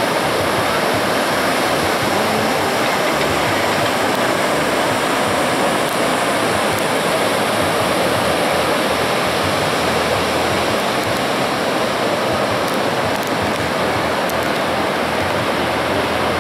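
Ocean surf breaking on the beach: a steady, unbroken wash of rushing water.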